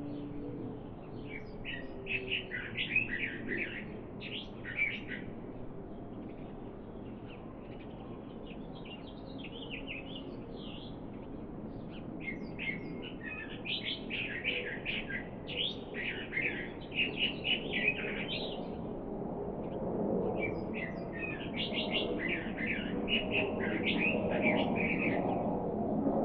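Small birds chirping and twittering in several bouts of quick, high chirps, over a steady low background hum of open country that swells near the end.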